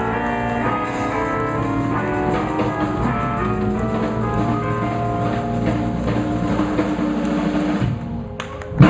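Live blues band playing an instrumental passage with electric guitar, bass and drum kit. The music thins out about eight seconds in and the song closes with a sharp final hit.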